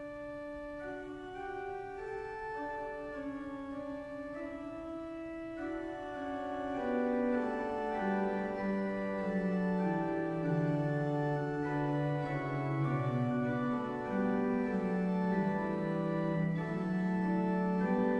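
Organ postlude: an organ playing slow, held chords. A lower part enters about six seconds in and the music grows louder.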